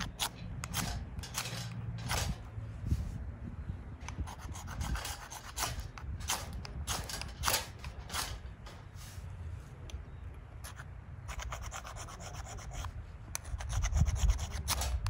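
Repeated short scraping strokes, about one or two a second, with a pause a few seconds in and a longer one past the middle.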